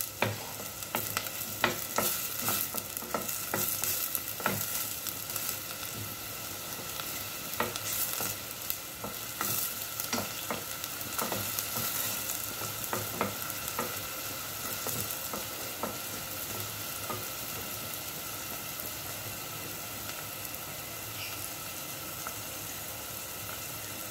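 Chopped onion sizzling in hot oil in a stainless steel saucepan, being browned. A wooden spoon stirs and scrapes the pan bottom with frequent short knocks over the first two thirds; after that the sizzling goes on alone.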